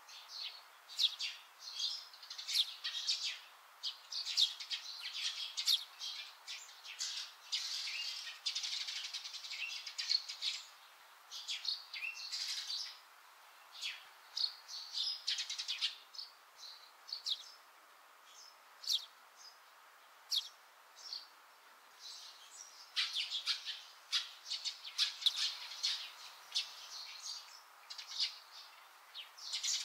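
Small songbirds chirping outdoors in quick runs of short high calls, thinning out for a few seconds midway before picking up again.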